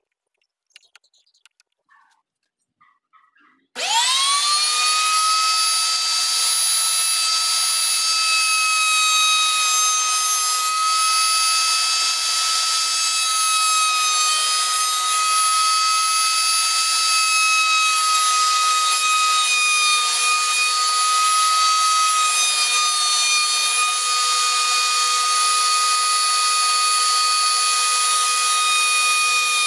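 Table-mounted router switched on about four seconds in, spinning up within a fraction of a second to a loud, steady high-pitched whine. It runs on while a curved wooden workpiece is routed against the bit, the pitch dipping slightly now and then.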